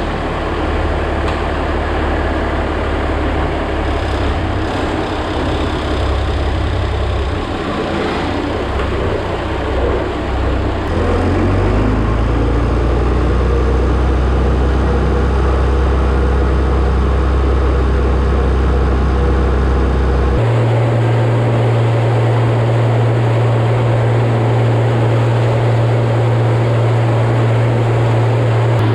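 A vehicle engine running steadily, its low drone stepping to a different pitch a few times and settling on a steady higher note about two-thirds of the way through.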